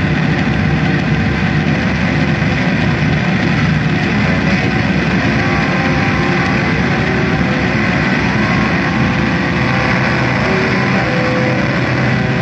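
Loud, steady wall of amplified electric-guitar noise from the amplifier cabinets, a dense drone with held low tones that shift about nine seconds in.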